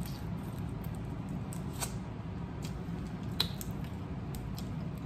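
Close-miked eating sounds of crab legs: wet sucking and smacking on the meat, with scattered small sharp clicks of shell. The sharpest click comes about three and a half seconds in, over a steady low background hum.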